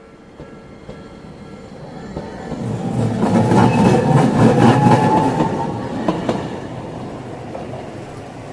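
Toden Arakawa Line 8900-series single-car tram passing close by over the crossing. It swells up from about two seconds in, is loudest in the middle with a run of wheel clacks over the rail joints and a whine rising in pitch, then fades away.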